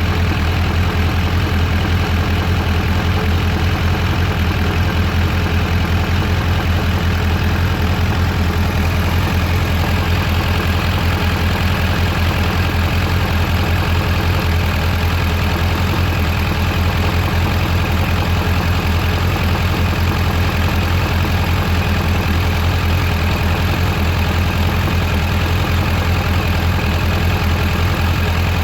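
Suzuki GSX750F motorcycle's inline-four engine idling steadily, with an even low hum that holds constant. The owner is unsure whether a noise it makes at idle is normal.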